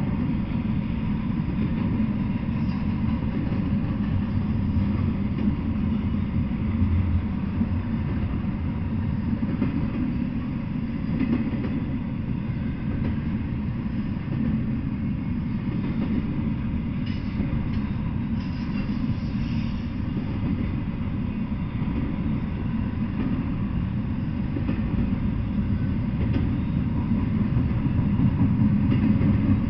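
Double-stack intermodal freight train's well cars rolling past on the rails: a steady low noise of steel wheels on track, growing a little louder near the end.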